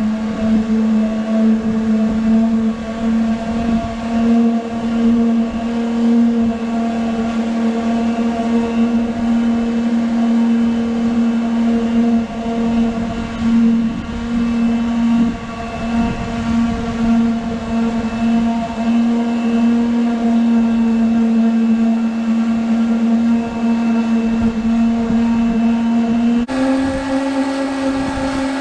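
Electric power sander running steadily while sanding old camo paint off a Carolina skiff hull, a constant motor hum that steps up slightly in pitch near the end.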